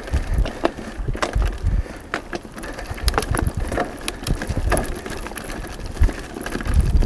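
Mountain bike ridden fast down a dirt forest trail: tyres crunching over dirt and dry leaves, with the bike rattling and clicking over bumps and irregular low thumps.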